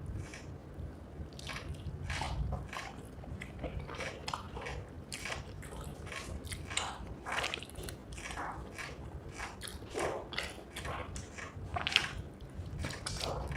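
Close-miked chewing and mouth sounds of someone eating rice with fried egg curry, in irregular short wet strokes.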